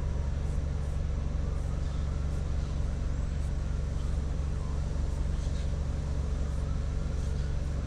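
Steady low mechanical hum, like an idling engine or running machine, holding even throughout.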